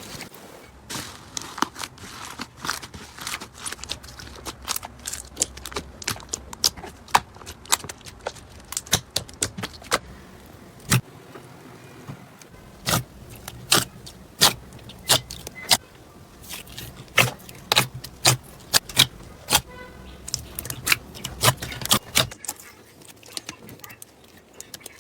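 Slime being squeezed and pressed by hand, giving an irregular stream of small sharp clicks and pops of trapped air, with louder pops in the second half.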